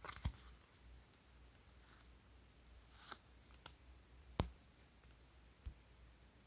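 Faint handling sounds of a leather shoe being turned over in the hands: light rustles and a few soft clicks, the sharpest about four seconds in.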